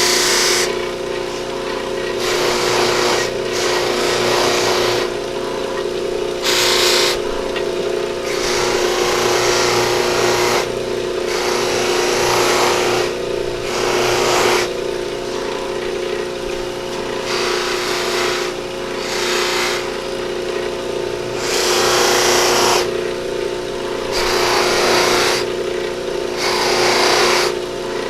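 Motor-driven buffing wheel spinning with a steady hum while an antler pen blank is pressed against it over and over, each contact a rush of hissing friction lasting a second or so.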